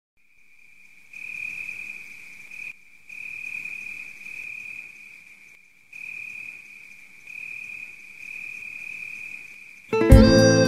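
A cricket's steady, unbroken high trill over faint outdoor hiss, dropping out briefly twice. Music comes in abruptly near the end.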